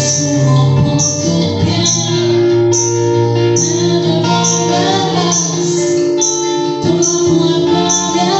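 Live music: an electric guitar played through effects pedals with a woman singing, over a short high hissing tick that repeats a little less than once a second.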